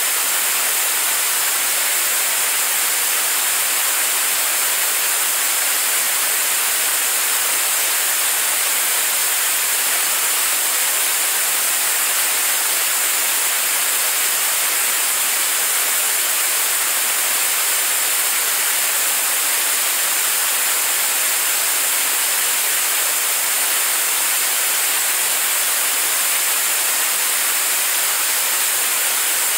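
Staged-combustion liquid rocket engine firing steadily on a test stand, in its steady-state burn: an even, unbroken rushing noise, heavy in the highs and with almost no bass, holding the same level throughout.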